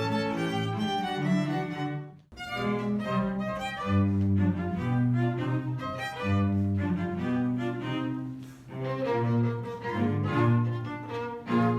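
Bowed string ensemble, violin over cello and bass, playing a melody with moving notes. The music cuts off abruptly for a moment about two seconds in, then resumes.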